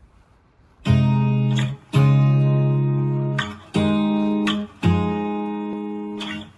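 Background music: acoustic guitar strumming sustained chords, starting about a second in, with a new chord every second or so.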